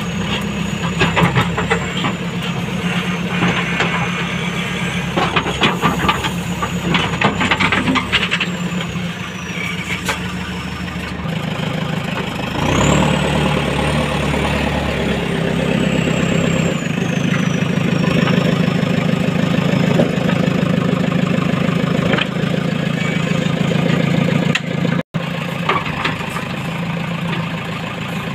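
JCB backhoe loader's diesel engine running as the backhoe works, heard from inside the cab, with repeated knocks and clatter of the bucket and soil in the first several seconds. About twelve seconds in the engine revs up with a rising whine, then settles back down a few seconds later.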